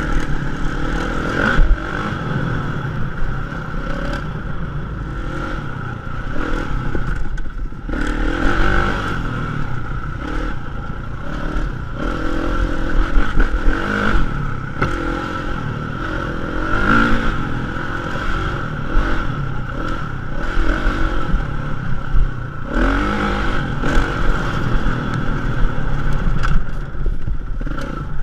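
Dirt bike engine revving up and down again and again while riding, with the bike rattling and clattering over rough ground.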